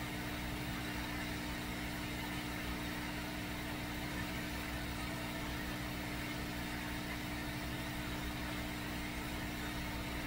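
Hot air rework station blowing steadily onto a chip to melt its solder: an even rush of air over a steady motor hum, with the air pressure set a little high.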